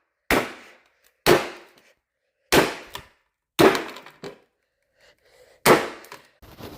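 Sledgehammer striking a can: five heavy blows roughly a second apart, with a longer pause before the last, each a sharp bang that dies away quickly.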